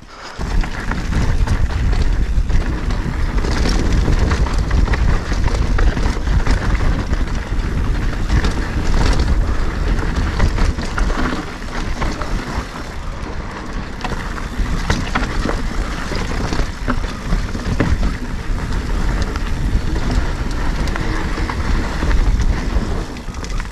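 Mountain bike riding over a rough, rocky trail: a continuous clatter and rattle of the bike on rocks and dirt, with wind rumbling on the microphone.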